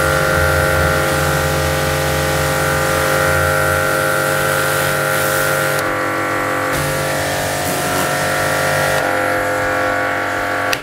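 SIP electric pressure washer's motor and pump running with a steady hum and the hiss of the water spray; the hiss drops away twice for a second or so while the motor keeps running, and everything cuts off suddenly at the very end. The motor runs on without switching off because its pressure switches are bypassed.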